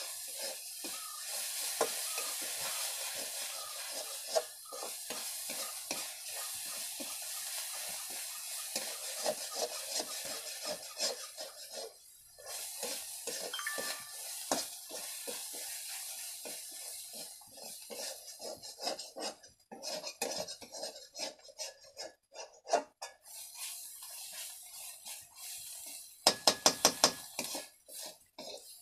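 Curry frying in a wok with a steady sizzle while a metal spatula stirs and scrapes against the pan, with frequent small knocks. Near the end comes a quick run of sharp, loud metal knocks of the spatula on the pan.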